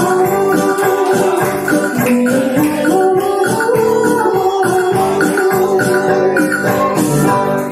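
Live band music: electronic keyboards holding sustained chords over a steady hand-percussion rhythm with jingling, tambourine-like strokes.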